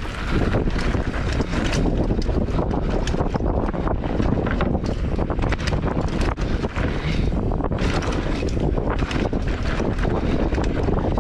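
Wind buffeting the microphone of a bike-mounted camera as a mountain bike rides fast down a dirt and gravel trail, with tyre noise and the bike rattling and clicking over the rough ground.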